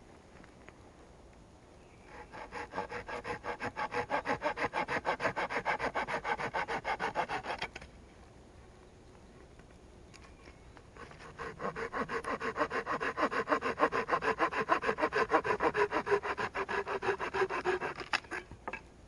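Hand saw cutting wood in two spells of quick, even back-and-forth strokes, with a pause of a few seconds between them.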